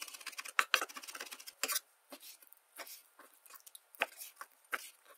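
Chef's knife rapidly chopping garlic on a wooden cutting board, a quick run of taps. After about two seconds this gives way to slower, separate knocks as the knife slices through raw boneless chicken thigh onto the board.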